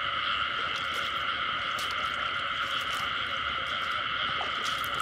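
Dense chorus of many frogs calling steadily without a break, with a few faint clicks mixed in.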